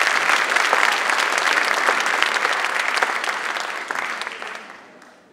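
Theatre audience applauding at the end of a song. The clapping dies away over the last second and a half.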